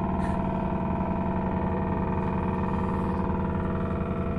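Steady mechanical drone of a moored ship's machinery running. It holds an even, unchanging hum made of several fixed tones.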